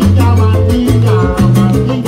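Live salsa orchestra playing: a loud, steady bass line under regular percussion strokes from timbales and congas, with other instrument parts above.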